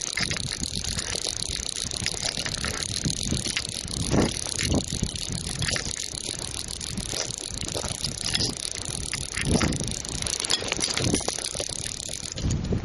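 Fly reel's click-and-pawl drag ticking rapidly and without a break, over the rush of the river, with a few dull handling bumps.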